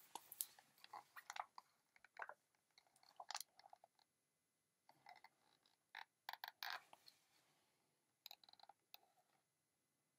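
Near silence broken by faint, scattered crackles and taps of a hardcover picture book being handled and held up with its pages open.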